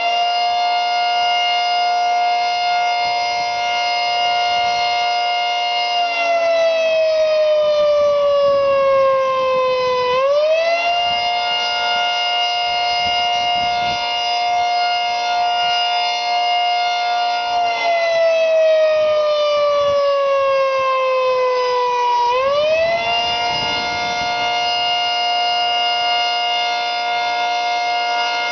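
Federal Signal 3T22 three-tone outdoor warning siren sounding a chord of several tones. The chord holds steady for several seconds, then slides down in pitch over about four seconds and quickly winds back up to full pitch. This happens twice.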